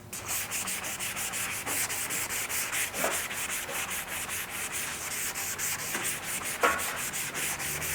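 Sandpaper on a hand sanding block rubbed quickly back and forth over primer-surfacer on a motorcycle panel, wet sanding, about five or six strokes a second.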